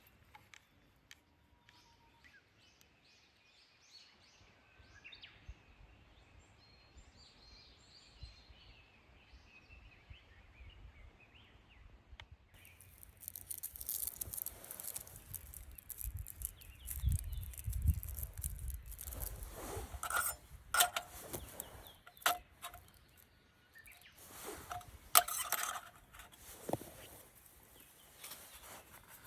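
Birds chirping and singing faintly. About halfway through, louder rustling with sharp clicks and knocks takes over, as of gear being handled.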